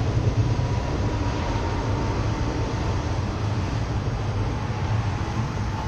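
Rear autorack freight cars rolling across a railroad bridge: a steady low rumble of steel wheels on the rails, with a faint thin whine running under it.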